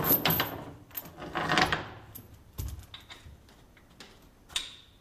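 Steel muck spreader flail chains rattling and clinking against each other and the rotor shaft as they are handled and fitted. There are two spells of jangling, one at the start and one about a second and a half in, then a couple of single metal knocks.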